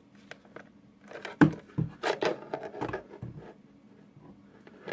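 Hard plastic knocks, clicks and rattles of a battery charger and its part being handled and pushed together, trying for a clip-on fit that doesn't catch. The knocks come in a cluster about a second and a half in, the first one the loudest.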